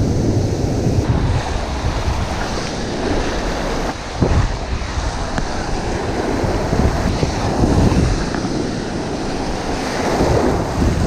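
Ocean surf breaking on a beach, with wind buffeting the microphone.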